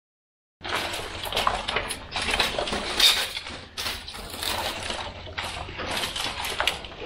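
Brief dead silence, then irregular clinking, knocking and scraping of loose metal scrap and cables as someone clambers through debris in the dark.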